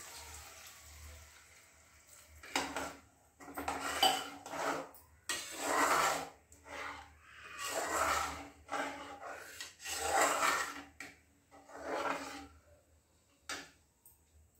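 Steel spatula stirring and scraping a stainless-steel pot of thin, freshly watered masala gravy, in repeated strokes about one a second; the pouring of a glass of water fades out at the start, and a single clink comes near the end.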